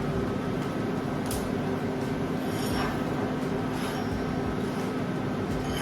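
Angle grinder running steadily with a constant whine, grinding the edges of a plasma-cut steel plate clean of leftover dross.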